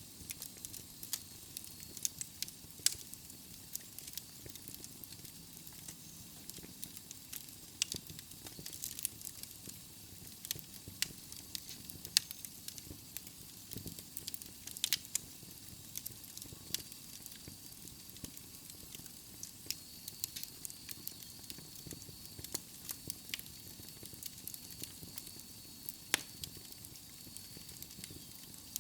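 Wood logs burning in a fireplace, crackling with sharp, irregular pops over a soft hiss. A faint, thin high whistle joins about halfway through.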